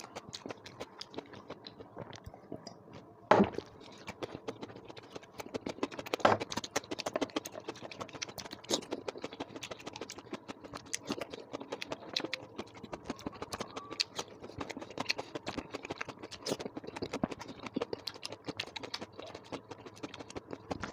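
Close chewing and wet mouth sounds of a person eating a rice, dal and curry meal: a steady patter of small smacking clicks, with one sharp, loud crack about three seconds in.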